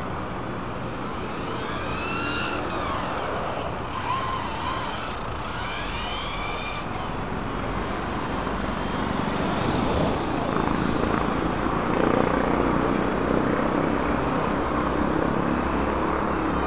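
Electric motor of a radio-controlled model whining up and down in pitch several times as it speeds up and slows, over a steady rushing noise that grows louder about two-thirds of the way through.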